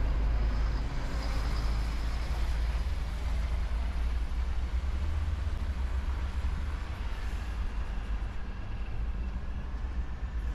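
Road traffic: vehicles running past with a steady low rumble and a faint high whine over it.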